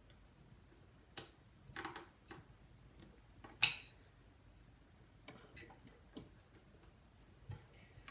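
Scattered small clicks and taps of hands and a tool on small computer parts, irregularly spaced, the sharpest about three and a half seconds in, while a fan connector is worked at to seat it on its pins.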